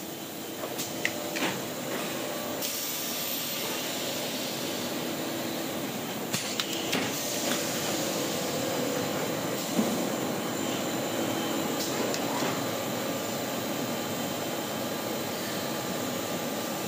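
PP honeycomb board extrusion line running: a steady machinery hiss and hum, with scattered clicks and knocks, a few about a second in, more around six to seven seconds in and the sharpest near ten seconds in.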